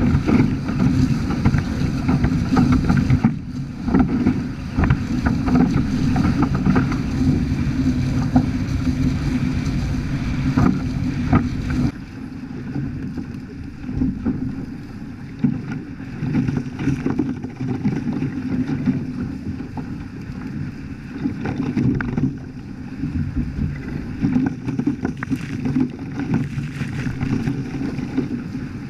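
Wind buffeting the microphone and water rushing along a Hobie Cat 14 catamaran under sail, with a gusting low rumble. The sound turns quieter and duller about twelve seconds in.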